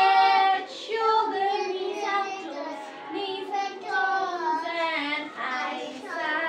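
Small children and a woman singing a nursery action song together, the tune held and gliding from note to note.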